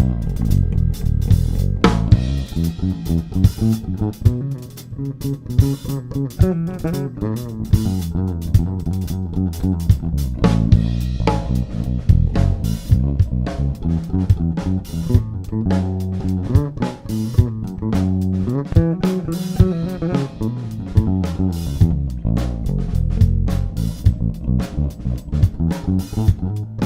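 Live rock band playing an instrumental break: electric and bass guitar over a drum kit with a steady beat.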